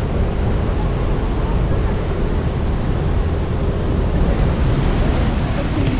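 Steady rushing of the Rhine Falls, a large waterfall pouring over rocks, as a continuous loud wash of water noise.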